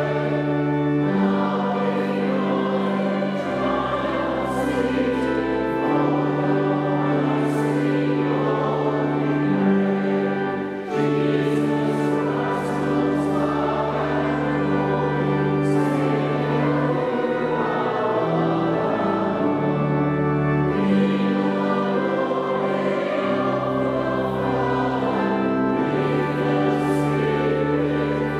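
Church pipe organ accompanying voices singing in a sacred choral piece, the organ holding long, steady bass notes that change every few seconds.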